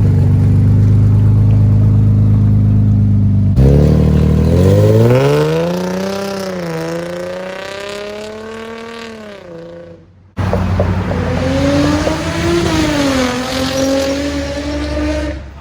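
Infiniti G35's 3.5-litre V6 exhaust, running through Tomei exhaust pipes whose flex pipes are blown out and leaking, in three separate clips: a steady held note, then the revs rising and falling, then a second rise and fall.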